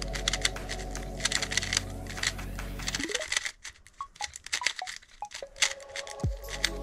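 Xman Tornado V3 speedcube being turned quickly through a solve: a rapid, irregular patter of plastic clicks and clacks from the loosely tensioned cube. A steady low background hum drops out about three seconds in and comes back near the end.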